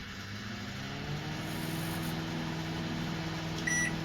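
Redmond RM-2302D microwave oven running with a steady hum that builds over the first second or so, free of the grinding noise it had before its faulty piezo buzzer was replaced. A short high beep from the buzzer comes near the end.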